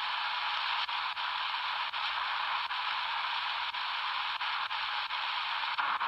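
Shortwave radio static from a small transistor receiver's speaker: a steady hiss, broken by about nine brief dropouts at uneven spacing.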